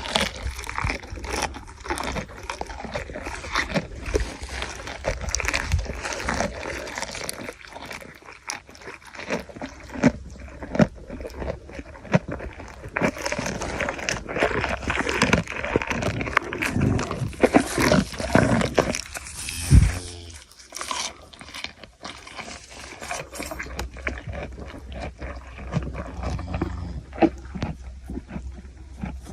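Camel chewing its food: irregular crunching and biting sounds, with a single louder low sound about twenty seconds in.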